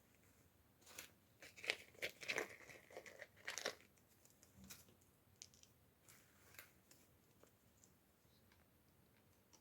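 Packaging being torn open and crinkled in a quick cluster of sharp crackles, followed by a few faint scattered ticks of small pieces being handled.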